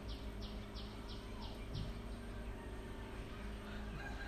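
Rabbits chewing leafy greens and carrot: a quick run of soft crunching bites, about three a second, that stops about two seconds in, over a steady low hum.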